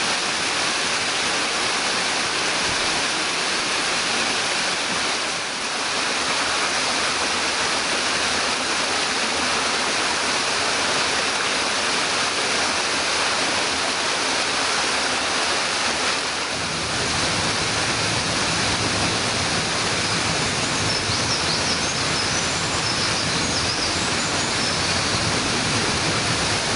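Steady rushing of a tiered mountain waterfall pouring over rock, with a little more low rumble from about two-thirds of the way in.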